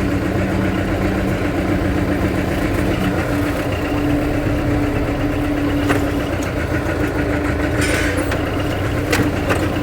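Truck engine running steadily, with a deep hum that eases about three seconds in and a couple of brief clicks later on.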